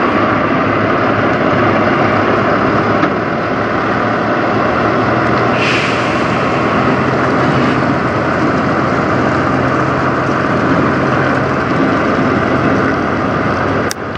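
Peterbilt semi truck's diesel engine running steadily as the rig pulls away towing its trailer, with a short hiss of air about six seconds in.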